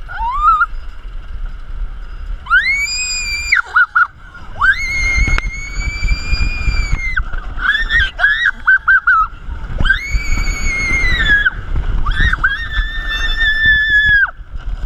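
Roller coaster riders screaming: about four long, high, held screams, with a run of short yelps near the middle, over wind buffeting the microphone on the moving ride.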